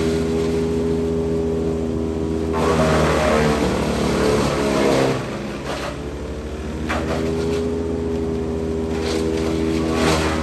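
An engine running steadily. For a couple of seconds about a quarter of the way in it labours and changes pitch with a rush of noise, then settles back to its even note.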